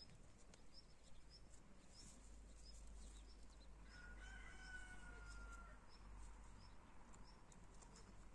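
A rooster crowing faintly: one long, slightly falling call about four seconds in. Throughout, a faint high chirp repeats about twice a second.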